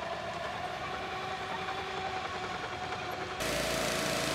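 Diesel engine of a Caterpillar crawler bulldozer running steadily. About three and a half seconds in it cuts suddenly to a louder petrol pressure washer engine running, with the hiss of its spray.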